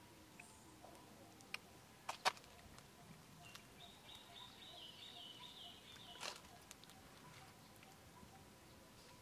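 Faint outdoor ambience with a few sharp clicks, the loudest about two seconds in, and a faint, high, wavering call lasting about two seconds from about four seconds in.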